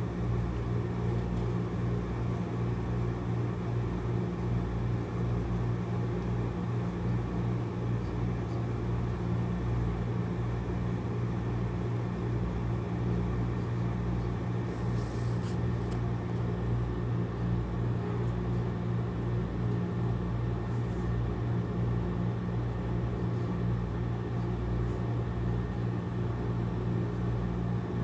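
Domestic cat purring close to the microphone: a steady low rumble with a regular pulsing beat.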